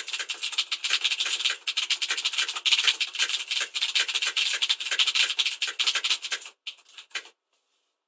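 Fast, continuous typing, around 130 words per minute, on a mechanical keyboard with clicky Cherry MX Blue switches: a dense run of key clicks. About six and a half seconds in it thins to a few last key presses and then stops.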